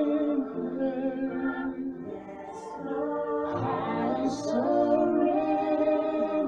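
Gospel song playing: a choir singing long held notes in harmony.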